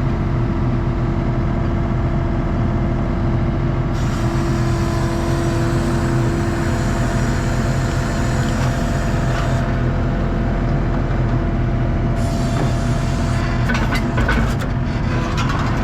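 ASV RT-40 compact track loader's diesel engine running steadily under work, with a steady whine over it. A few sharp clicks come near the end.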